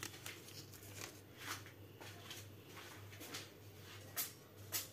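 Paper sachets of vanilla sugar being emptied into a saucepan: faint rustling and light taps, two slightly louder near the end, over a low steady hum.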